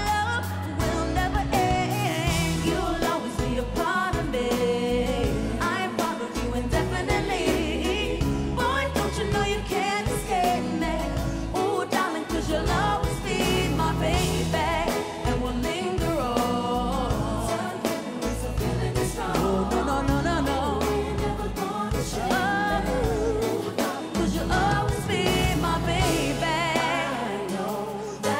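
Female lead vocalist singing a pop/R&B ballad live over a band, her voice moving in runs with vibrato over a steady bass line.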